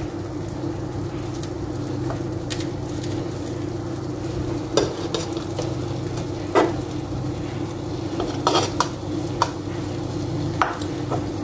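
Thin slices of meat sizzling as they fry in a nonstick pan, with a few sharp clicks of a metal fork against the pan as the slices are turned. A steady hum runs underneath.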